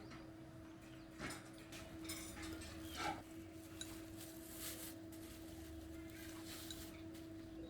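A few faint clinks and knocks, about a second in and again about three seconds in, over a steady faint hum.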